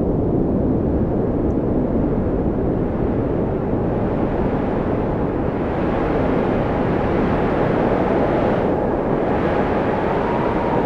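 Wind of a winter storm blowing steadily, with a faint whistle that slowly rises and falls in pitch.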